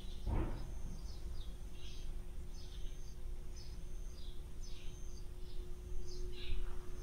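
Small birds chirping outdoors, short high calls repeating about once a second, each a level note then a falling one, over a steady low hum of background noise.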